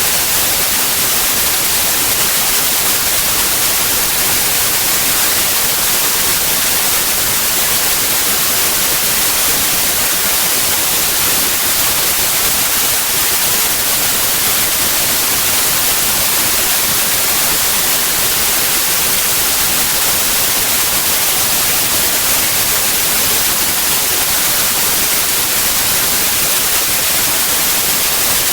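Steady, loud white noise: an even hiss across all pitches, brightest in the highs, with no change throughout.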